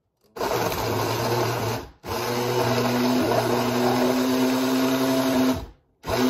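Electric blender motor run in pulses, crushing ice and frozen fruit: a steady hum starts shortly after the beginning and stops after about a second and a half. It starts again for about three and a half seconds, cuts off, and starts once more near the end.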